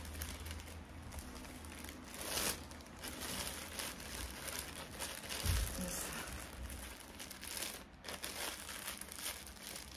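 Clear plastic bag, with green paper inside, crinkling and rustling as it is handled and packed, with irregular crackles throughout; the loudest rustle comes about two and a half seconds in.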